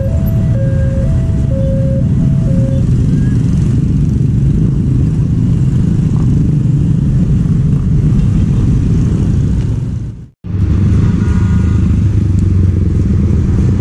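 Level-crossing warning alarm sounding its alternating two-tone chime, which stops about three seconds in, over the steady running of a crowd of motorcycle engines moving off across the crossing. The sound drops out for an instant about ten seconds in, and then motorcycles are heard passing again.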